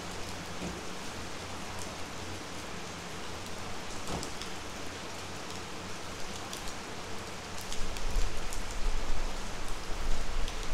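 Steady rain falling, with scattered drops ticking close by. In the last few seconds a low rumble comes in and the level rises unevenly.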